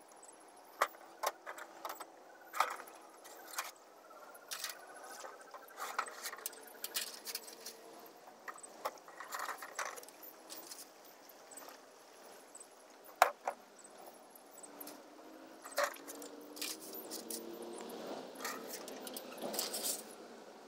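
Scattered light clicks and knocks at irregular intervals over a faint background hiss, the sharpest about 13 seconds in.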